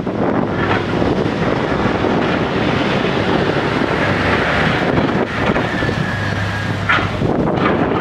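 Case backhoe loader's diesel engine running under load as the backhoe arm digs into the soil, with a steady low hum and a brief sharp knock about seven seconds in.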